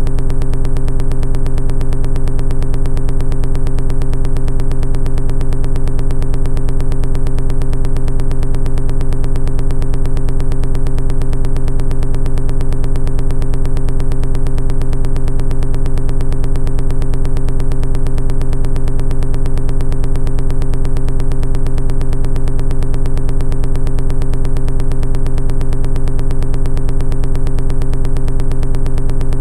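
Background music: a steady, unchanging synthesizer drone holding the same few low tones, with a fast, even pulse.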